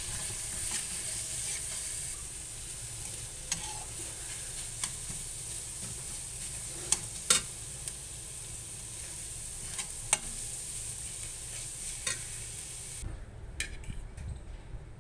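Egg bhurji sizzling in a hot pan while a metal spatula stirs and breaks up the egg, with several sharp clicks of the spatula striking the pan. The sizzling cuts off suddenly near the end.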